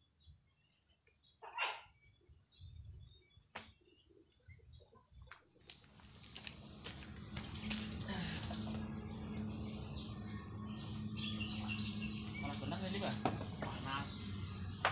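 Insects chirring in a steady, high-pitched drone that swells in about six seconds in and holds. A few faint clicks come before it.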